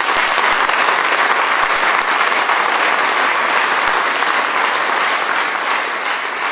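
Audience applauding, a dense steady clapping that starts abruptly and eases slightly near the end.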